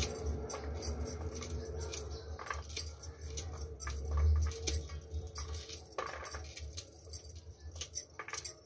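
Corn kernels being pried off a cob by hand and dropping onto a steel plate: scattered, irregular light clicks and ticks over a low steady hum.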